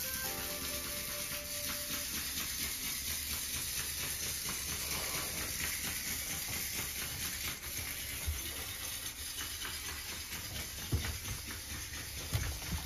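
A steady hiss of background noise, with a few soft low thumps in the last few seconds.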